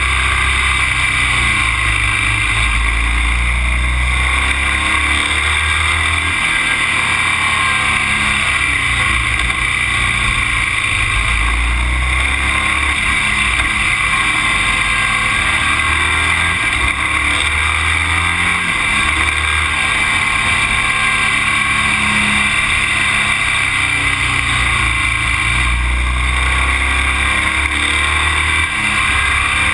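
Steady, loud wind and road noise of a moving vehicle. Heavy low rumble swells and drops every few seconds as wind buffets the action camera's microphone.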